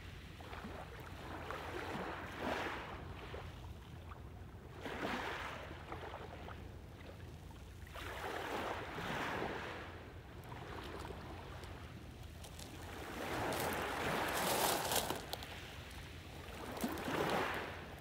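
Small waves lapping on a pebble beach, about five washes a few seconds apart, each swelling and fading, with pebbles rattling as the water runs over them; the biggest wash comes about two-thirds of the way in.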